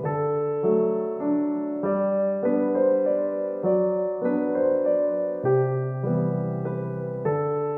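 Instrumental background music: slow chords under a melody, the notes changing about every half second to a second.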